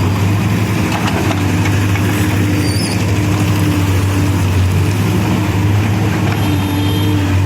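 CASE backhoe loader's diesel engine running steadily with an even, low drone.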